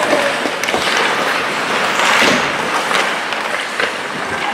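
Ice hockey play on a rink: skate blades scraping the ice with scattered short clacks of sticks and puck, over general arena noise.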